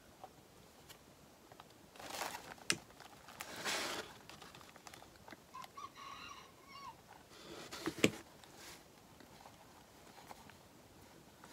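Rustling and handling noises from work at a table, with a sharp tap about eight seconds in. A short hen call sounds faintly about six seconds in.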